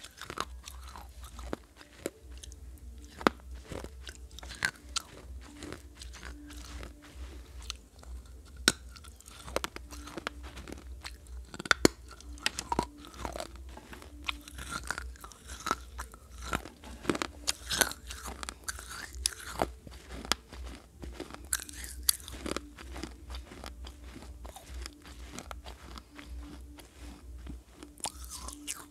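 Pieces of a fired clay pot bitten and chewed close to the microphone: many irregular, sharp crunches, with a few louder cracks.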